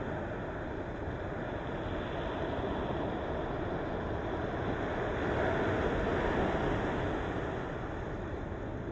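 Ocean waves washing in, a steady rush of surf that swells to a louder surge about halfway through and then eases off.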